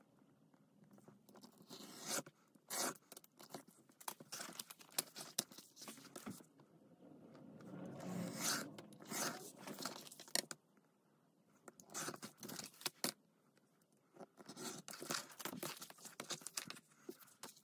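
Craft knife slicing through leather along a steel ruler in a series of short scraping cuts, with the leather and plastic template sleeve rustling as they are handled.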